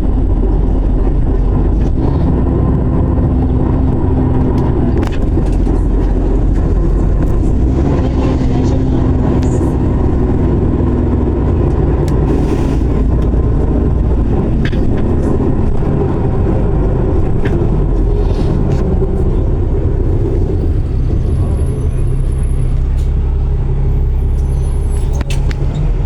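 Alexander Dennis Enviro400 double-decker bus running, a steady drone of engine and road noise with a humming tone that comes in twice, in the first half.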